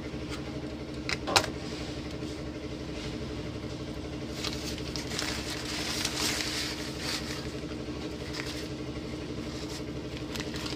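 Steady low mains hum from a 3055-transistor stereo amplifier playing through its speakers, the fault being traced to loose filter-capacitor connections on the board. Two light clicks about a second in and a rustle of handling in the middle as the circuit board is lifted.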